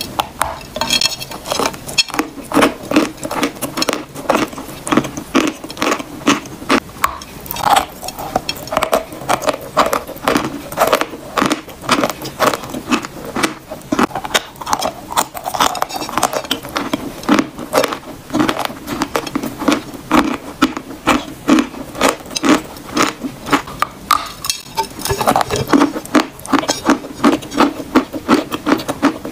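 Close-miked crunching and chewing of edible chalk: bites into chalk chunks and a steady run of dry, crumbly crunches, about two or three a second.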